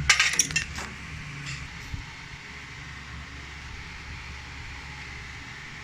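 Metal parts clinking and clattering, a quick run of clanks in the first second and a single tick about two seconds in, over a steady mechanical hum.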